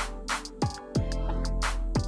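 Background music with a steady beat: deep bass-drum hits that drop in pitch, sharp snare or clap hits, and held notes underneath.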